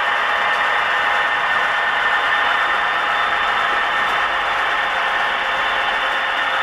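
HO scale SD35 model diesel locomotive running with a train of coal hoppers: a steady, even whirring and clattering sound with no change in pace.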